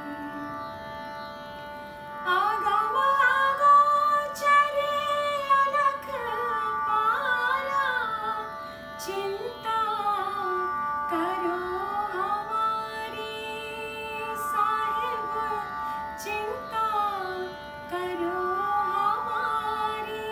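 A woman singing a Hindi devotional bhajan, her melody gliding and ornamented, over steady sustained instrumental accompaniment. The voice comes in strongly about two seconds in.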